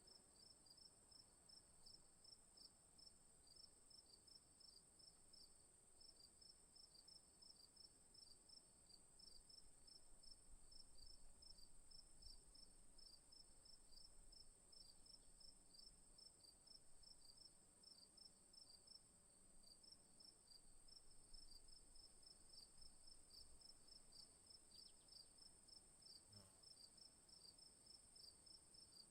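Crickets chirping, quiet: a steady, high-pitched trill runs underneath, while another cricket chirps in a quick, regular rhythm of several chirps a second, pausing briefly now and then.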